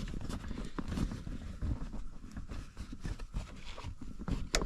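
Faint scattered clicks and scrapes of small metal parts being handled as a heater cable is worked onto its arm, with a sharper click near the end.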